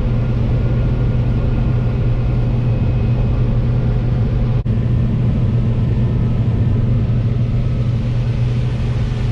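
Combine harvester running through a corn field: a loud, steady low engine and machinery drone with constant rushing noise. The drone dips for an instant about halfway through.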